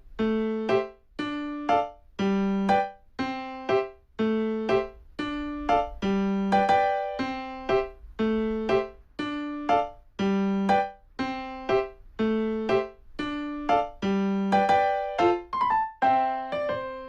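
Background music: a light piano or electric-piano tune with evenly repeated notes over a simple bass line.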